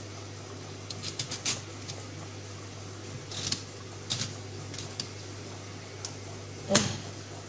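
A knife cutting and scraping out the flesh of a black radish: a quick run of small clicks about a second in, a short scrape about three and a half seconds in, scattered single clicks, and a louder knock near the end. A steady low hum lies underneath.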